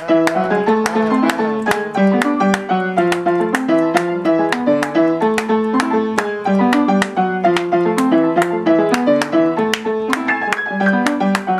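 Upright piano playing a salsa montuno: a quick, syncopated figure of repeated chords over a bass line, steady throughout.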